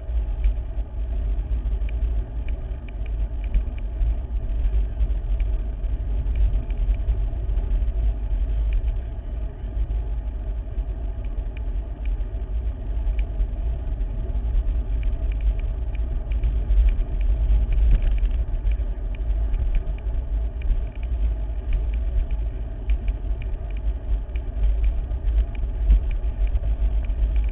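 Wind buffeting the microphone of a handlebar-mounted camera on a moving bicycle: a steady low rumble, with tyre and road noise beneath it.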